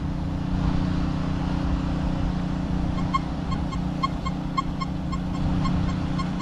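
Nokta Simplex Ultra metal detector giving a quick string of short, faint beeps, about four a second, starting about three seconds in, as its coil passes over a penny lying on the grass: a weak signal at sensitivity 8, just not very loud. A steady low hum runs underneath throughout.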